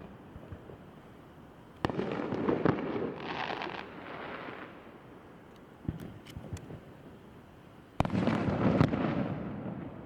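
Aerial firework shells bursting: two loud bangs about six seconds apart, each followed by a couple of seconds of rapid small pops that die away, with a few fainter pops between them.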